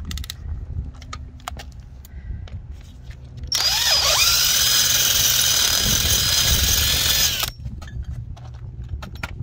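Power drill boring through the bolt hole of a cast-metal air dryer purge valve housing to enlarge it, running for about four seconds from about three and a half seconds in, its pitch dipping briefly as the bit bites and then holding steady. Light clicks and taps of handling come before and after.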